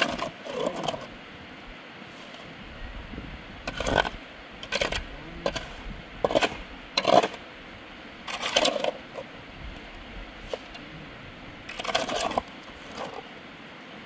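A series of short, irregular scrapes and clinks of hard objects, about ten in all, at uneven intervals over a steady background hiss.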